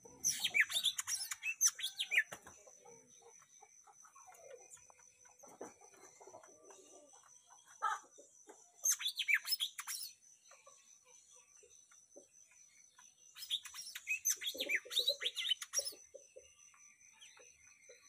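Caged cucak mini songbird singing in three bursts of rapid chirping, whistled notes, each about one to two and a half seconds long, with long pauses between.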